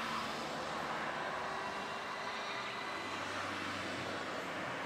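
Distant, steady rumble of a freight train going away, an EH500 electric locomotive hauling Chiki 6000 rail-carrying flatcars, with a faint low hum joining about three seconds in.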